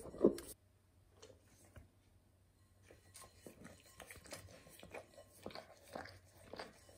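A dog eating: a loud lick or slurp right at the start, then after a short quiet gap, faint irregular chewing and lip-smacking clicks.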